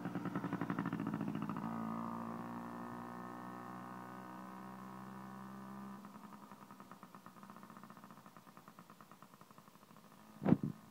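Small child's dirt bike engine buzzing as it rides away, fading steadily into the distance. Near the end, a brief louder sweeping sound close to the microphone.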